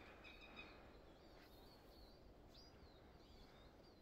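Near silence: quiet woodland ambience with faint bird calls, a few short warbling chirps scattered through.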